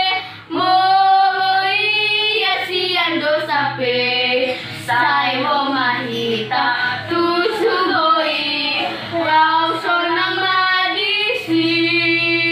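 Two children, a boy and a girl, singing a children's song together.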